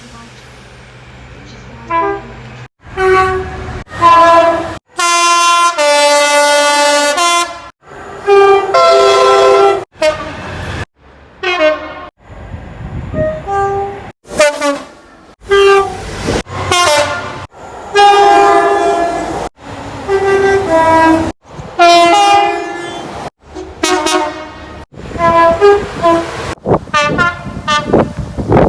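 A rapid montage of short blasts from British railway locomotive and train horns, about twenty clips spliced back to back with abrupt cuts. Many are two-note blasts, a higher tone followed by a lower one.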